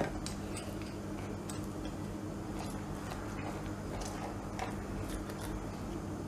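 Pizza cutter wheel slicing through a freshly baked pizza, its crisp crust giving scattered small crunching ticks and crackles over a steady low hum.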